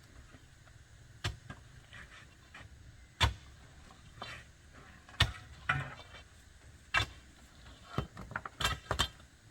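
Sharp knocks and thuds from masonry work on a retaining wall, a few seconds apart at first, then coming faster near the end.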